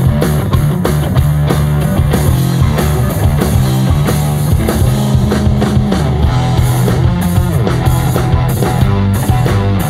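A rock band playing live: guitar over sustained bass notes and drums keeping a steady beat.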